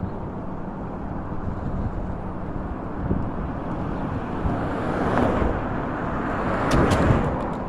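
Steady low rumble of road and wind noise while riding a rented electric scooter slowly along a city street, swelling louder about five seconds in and again near the end, with a few sharp clicks near the end.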